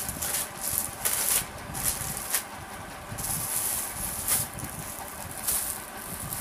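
Irregular rustling and handling noise from clothing garments being moved about, in short bursts.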